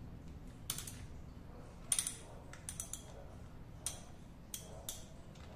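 Irregular sharp metal clicks, about nine, from a cap-type oil filter wrench being worked on the screw-on oil filter of a Kawasaki Versys 1000, loosening the filter off the engine.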